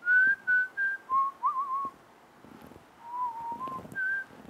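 A man whistling a few notes of a tune, in two short phrases with a pause of about a second between them.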